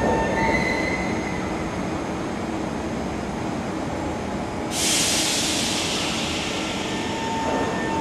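SMRT C751B metro train standing at the platform, its equipment giving a steady hum. About five seconds in, a sudden loud hiss of air starts and fades away over the next few seconds.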